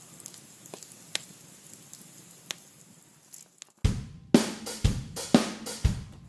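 Background music: a drum-kit beat with kick, snare and cymbals comes in about four seconds in, at about two hits a second. Before it, only faint scattered crackles and ticks.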